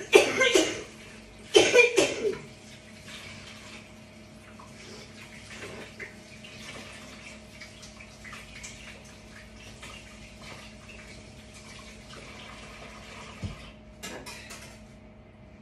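Liquid batter or cream being stirred with a hand whisk: soft sloshing with light ticks of the whisk against the bowl. Two loud, noisy bursts come in the first two seconds, and a shorter one about 14 seconds in.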